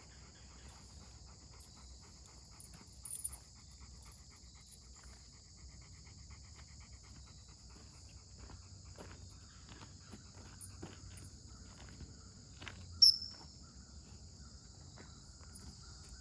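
Steady insect chorus, crickets, with faint scattered ticks and one sharp click about thirteen seconds in.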